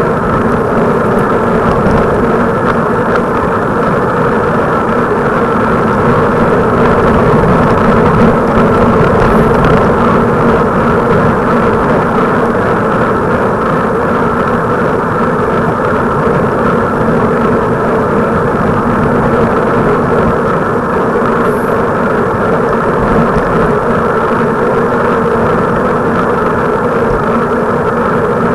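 Loud, steady wind and road rush from riding a bicycle along the road, with a constant hum underneath and no break.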